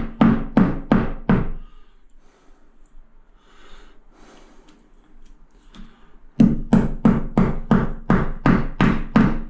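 Repeated hammer blows, about three a second, each with a short ring, in two runs with a pause of a few seconds between: a wall plug being tapped into a hole drilled through wall tile.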